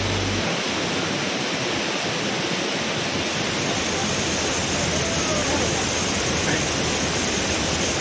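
Waterfall pouring over a broad rock ledge into a shallow pool: a steady, unbroken rush of falling water.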